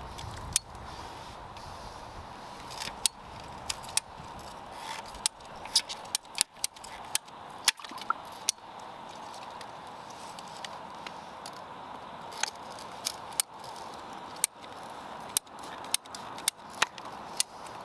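PVC irrigation pipe being cut by hand, a series of sharp, irregular clicks and snaps a few a second, over a faint steady tone.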